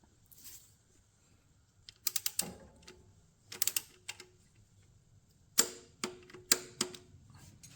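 Torque wrench ratcheting a bolt up to 8.7 ft-lb: quick runs of metallic clicks about two and three and a half seconds in, then several louder single clicks in the second half.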